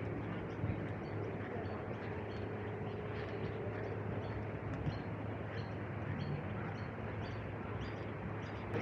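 Steady city street traffic noise with a low engine hum, and faint short high chirps repeating every second or so.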